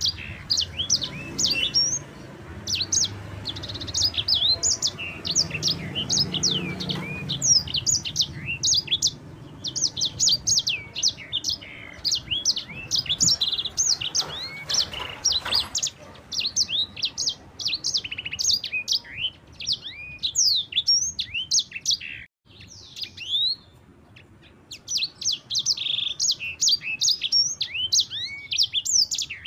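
Yellow-fronted canary (Mozambique canary, 'sanger') singing a fast, continuous rolling song of high, quick chirps and trills, with a short break about two-thirds of the way through.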